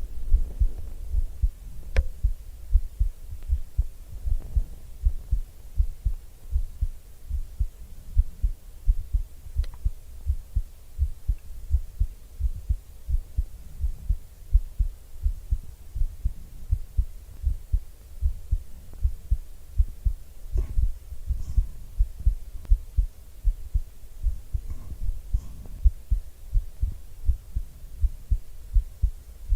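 A woman's heartbeat heard close up on an ASMR microphone: a steady train of low, soft beats. A few faint clicks sound over it.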